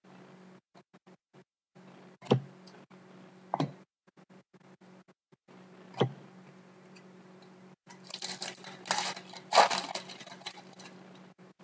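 Trading card pack and cards being handled on a table: three sharp taps, then about two and a half seconds of crinkling, rustling wrapper near the end.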